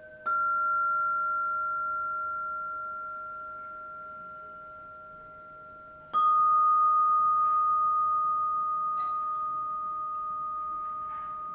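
Two strikes on sound-bath metal instruments, about six seconds apart. Each leaves a single clear tone that rings on and slowly fades, the second a little lower in pitch, over older, lower tones still humming underneath. A few faint light tinkles sound near the end.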